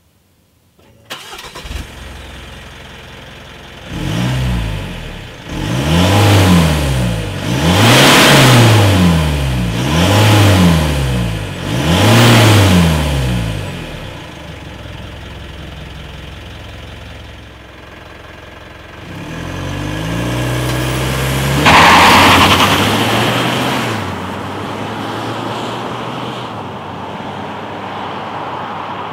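2016 Mitsubishi Outlander's 2.2-litre turbo-diesel four-cylinder heard at the exhaust: it starts about a second in and idles, is revved five times in quick succession and settles back to idle, then pulls away under hard acceleration, loudest a few seconds later, and fades as the car goes off down the road.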